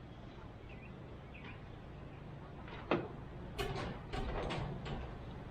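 A sharp click a little under three seconds in, then a short run of metallic clinks and scrapes as small steering-column shifter parts and hand tools are handled.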